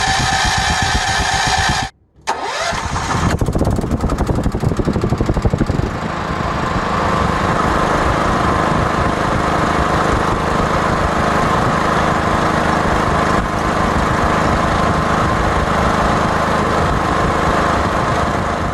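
Portable petrol generator engine. The sound cuts out briefly about two seconds in; the engine then starts and runs unevenly for a few seconds before settling into a steady run.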